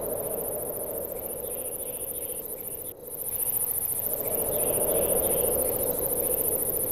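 Crickets chirping in a steady, rapidly pulsing high trill over a lower steady drone. The sound drops out briefly about three seconds in.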